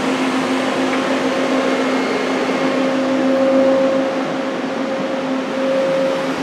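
Steady machinery hum holding one low, even tone with a fainter higher tone above it over a broad whir, with no starts or stops.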